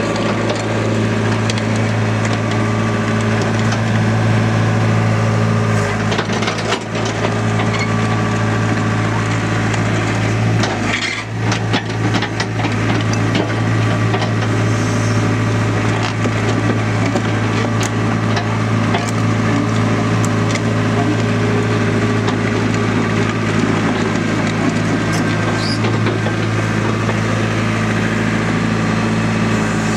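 Caterpillar E70B hydraulic excavator's diesel engine running steadily, with scattered crackling and clicking over it. The engine note dips and changes briefly about six and again about eleven seconds in.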